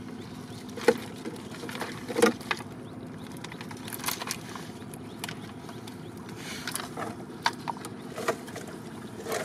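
Scattered short, sharp taps and rustles from a plastic crate of live, freshly caught fish, eels and shrimp being handled, over a steady background hiss.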